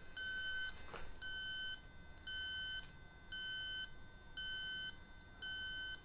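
Robinair LD7 refrigerant leak detector beeping at a slow steady rate, one half-second beep about every second.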